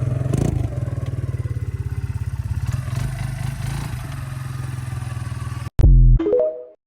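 Yamaha Grizzly 125 ATV's small single-cylinder four-stroke engine running steadily, freshly tuned up with a new carburetor and now running after failing to idle. Near the end the sound cuts off suddenly, followed by a brief very loud burst with falling tones that quickly fades.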